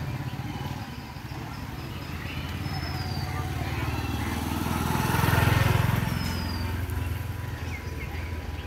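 A motorcycle passes close by, its engine hum growing louder to a peak about five and a half seconds in and then fading away.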